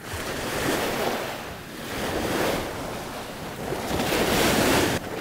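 Small surf breaking and washing up on a sandy beach, swelling and easing with each wave.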